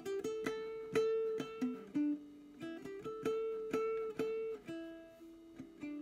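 Ibanez GA35TCE nylon-string classical guitar played fingerstyle: a melody of single plucked notes, about two or three a second, each ringing on into the next.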